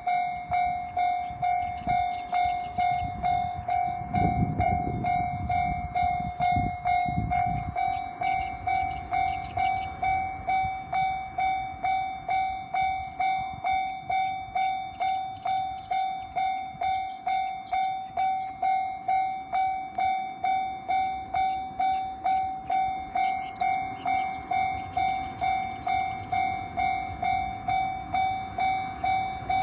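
Japanese railroad crossing warning bell ringing steadily, about two strikes a second, each strike dying away quickly. A low rumble comes in about four seconds in and fades a few seconds later.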